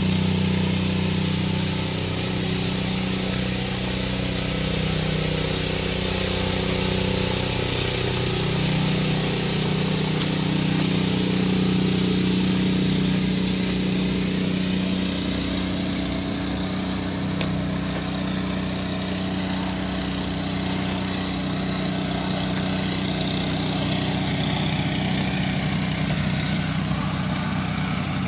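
Engine-driven pesticide sprayer running steadily at high speed, its engine note holding constant under a loud rushing hiss of spray or blower air.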